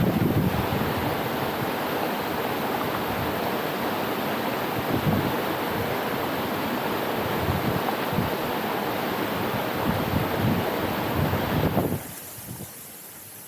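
Steady rush of a waterfall with wind buffeting the microphone in uneven low rumbles; the sound drops away abruptly near the end.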